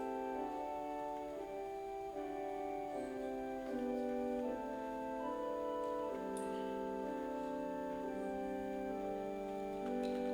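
Organ playing a slow, quiet prelude: sustained chords held for a second or more each, changing smoothly from one to the next.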